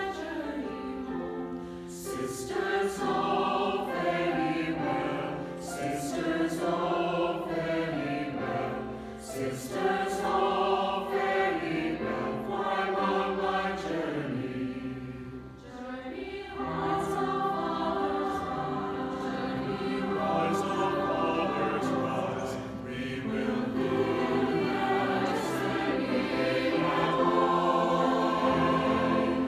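Mixed choir of men's and women's voices singing in harmony, with a brief breath about halfway through before the voices come back in.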